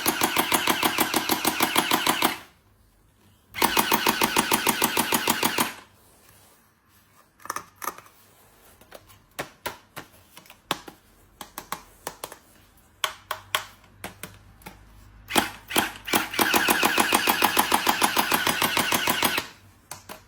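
A toy's rapid rattling clatter in three bursts of about two seconds each, with scattered single clicks and taps between them.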